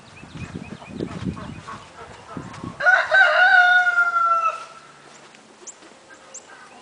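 A rooster crows once, about three seconds in: a loud call with a long held note that sags slightly in pitch before it ends. Before it there is low rumbling noise.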